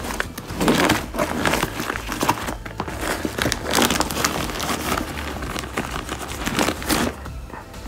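Fabric of an Arch Grisetti backpack rustling and crinkling as a hand rummages around inside it, in an uneven string of scraping bursts that stops about seven seconds in.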